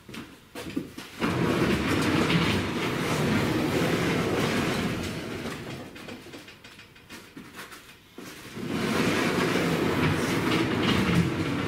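Homemade up-and-over steel garage door swinging open and then shut, its bearing rollers rumbling along angle-iron guide rails. There are two long runs of rumbling, one as the door is lifted open and one as it is pulled back down, with a short lull between.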